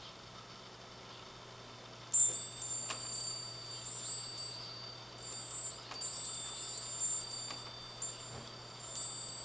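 Handmade fūrin wind chime ringing: after a quiet start it begins about two seconds in, tinkling with high, cool-sounding tones as it is struck again and again, with another strong strike near the end.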